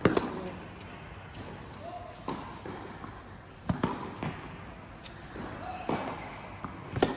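Tennis rally on an indoor hard court: sharp racket strikes and ball bounces every second or two.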